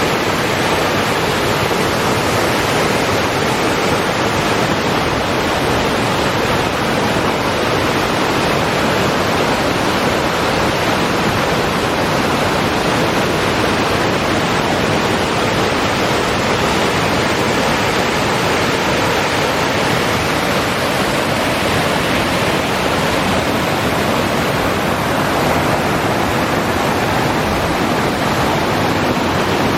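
Waterfall and its creek rushing: a loud, steady roar of falling water that does not let up.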